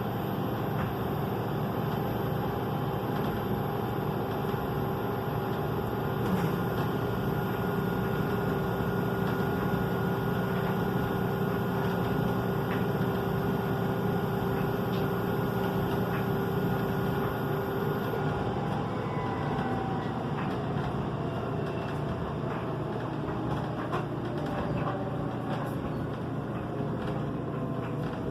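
LG front-load washing machine on extra high spin: a steady motor whine with several held tones over the rumble of the spinning drum. About two-thirds of the way through, the whine starts to fall in pitch as the drum slows down.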